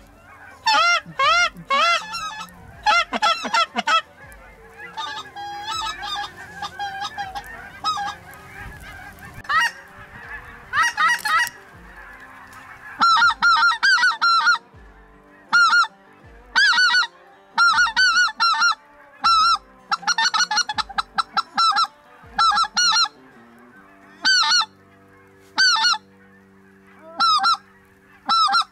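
Geese honking. A run of loud, evenly repeated calls opens, then a quieter, continuous clamour of a large flock follows, and loud repeated calls return from about halfway through.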